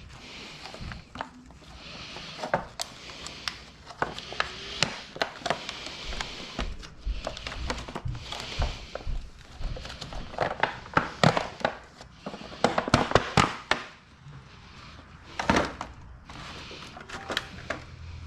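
Irregular clicks and knocks of hand tools and parts being handled during motorcycle oil-change work, coming in clusters, with a louder knock about fifteen seconds in.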